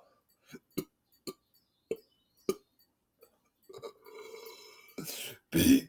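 A man's mouth and throat making a series of short clicks and gulps as he swallows air to load up a belch, then a quieter drawn-out sound in the throat. Near the end comes a loud belch shaped into the letter 'P'.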